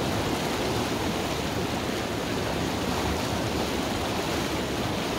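Mountain river flowing fast over rapids in a rocky gorge: a steady, even wash of water noise.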